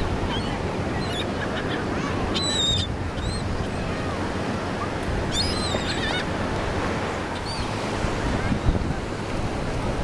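Laughing gulls giving short, high calls in two clusters, about two and a half and five and a half seconds in, with a few single calls between, over a steady wash of surf and wind on the microphone that buffets near the end.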